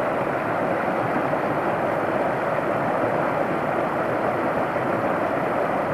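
Water rushing and splashing over rocks into a streamside hot-spring pool: a steady, unbroken rush.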